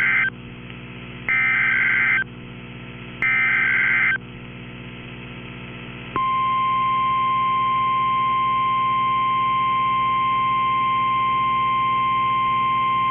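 Emergency Alert System SAME header data bursts: three short, shrill warbling bursts about two seconds apart, the first already ending. Then, about six seconds in, NOAA Weather Radio's steady 1050 Hz warning alarm tone starts and holds, the alarm that signals a watch or warning is about to be read. A constant low hum runs underneath.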